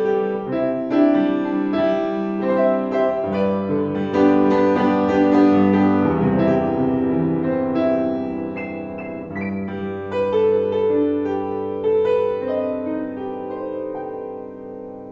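Upright piano being played by hand: a melody over held chords, growing a little softer near the end.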